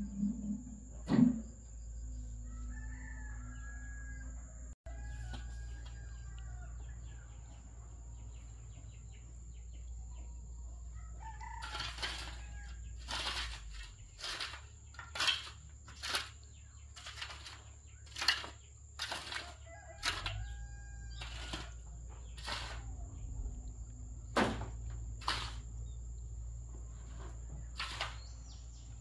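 Chickens with a rooster crowing. There is a sharp knock about a second in, and from about halfway through a run of sharp knocks or taps, roughly one or two a second.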